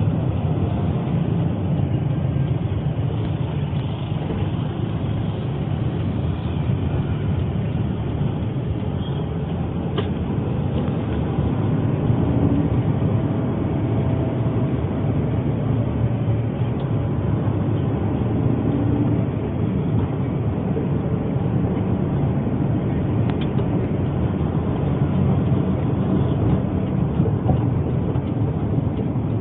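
Steady low rumble of road and engine noise inside a moving taxi.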